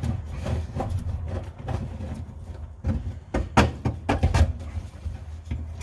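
Fuel pump assembly being worked by hand down into the fuel tank opening: rubbing and scraping, with a few sharp clunks between about three and four and a half seconds in, over a steady low hum.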